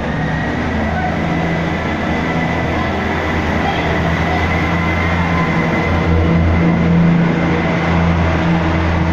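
Class 158 diesel multiple unit pulling away from the platform and passing close by, its underfloor diesel engines running under power with a steady low drone and a thin high whine. It grows slightly louder towards about seven seconds in.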